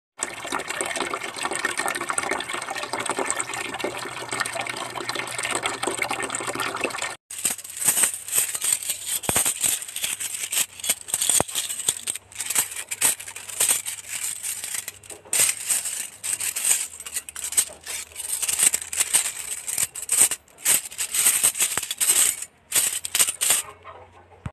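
A dense, even clatter for about seven seconds that cuts off suddenly, then a long run of quick clicks and rattles in irregular bunches, broken by short pauses.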